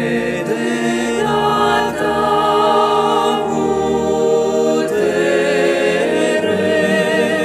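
A small mixed ensemble of women's and men's voices singing a slow Romanian hymn in harmony, holding long chords that change about every second or so.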